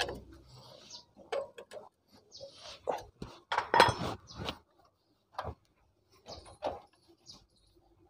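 Scattered metal clicks and clinks of hand tools working the clutch-cover screws on a Honda CD70 engine, the loudest a little under four seconds in.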